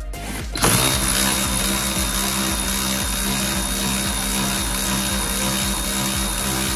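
Cordless ratchet's motor running steadily as it turns out a dash mounting bolt, starting about half a second in.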